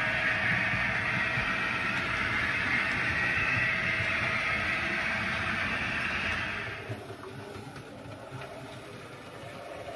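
Model freight train of container wagons running past close by, its wheels on the rails and motor making a steady rushing hiss with a low rumble. The noise drops sharply about seven seconds in, leaving quieter running sound.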